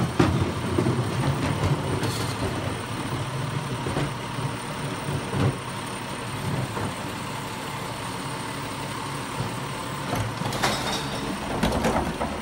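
Garbage truck engine idling steadily, with scattered clanks and knocks as wheeled trash carts are rolled up and hooked onto the truck's cart tipper. A cluster of louder clanks near the end comes as the hydraulic tipper begins lifting the carts.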